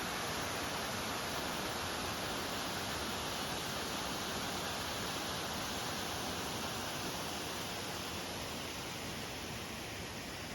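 Steady rush of falling water from a small waterfall running at low flow after months without rain, easing slightly near the end.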